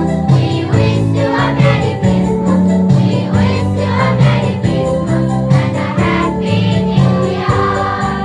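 Children's choir singing in unison, with instrumental backing of steady held low notes and a regular percussive beat.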